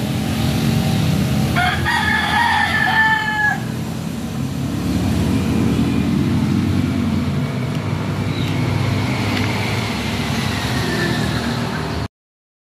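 A rooster crows once, about two seconds in, over a steady low rumble.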